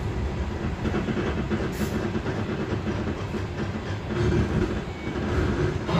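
Passenger coach of a local train heard from inside as it runs on the track: a steady low rumble of the wheels and running gear, with scattered faint clicks.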